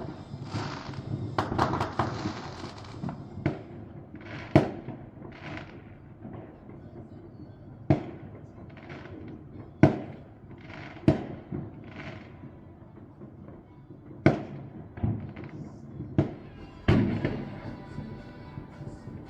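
Aerial fireworks going off at a distance: a string of sharp booms, about nine, each trailing off in an echo, with a dense spell of crackling in the first few seconds.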